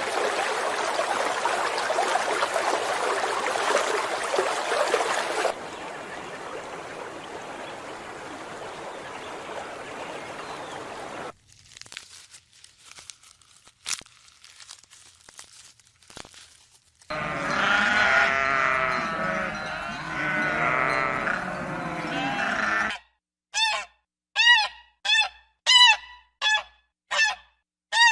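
A run of farm animal sounds. It opens with several seconds of noisy rustling and a few scattered clicks. Then comes a stretch of many animals calling over one another, and near the end a series of about eight short, separate calls from a single animal.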